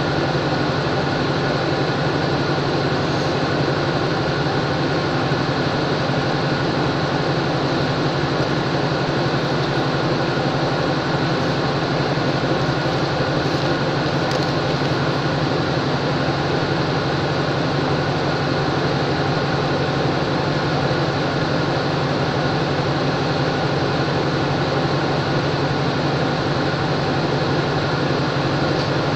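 Diesel locomotive engine idling steadily, a continuous low mechanical drone.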